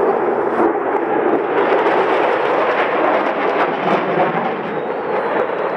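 Loud steady roar of F-16 fighter jets passing overhead, easing slightly near the end.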